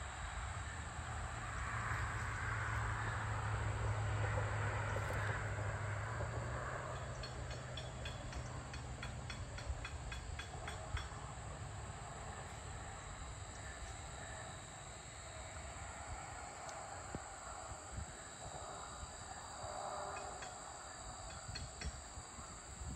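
Low rumble of a distant passing vehicle that swells over the first few seconds and fades away about seven seconds in, over a steady high-pitched buzz of insects.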